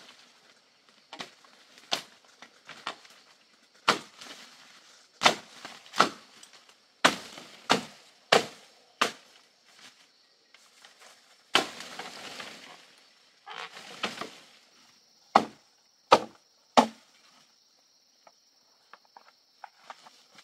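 Sharp chopping strokes of a blade cutting through stems and undergrowth, irregular at about one a second, with two short stretches of leaves and brush rustling in the middle. The strokes stop a few seconds before the end.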